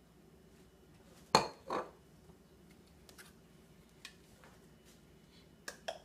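A small dish set down on a hard kitchen counter with two knocks about a second and a half in, followed by a few faint clicks and two sharp clicks near the end as a small vanilla extract bottle's cap is worked open.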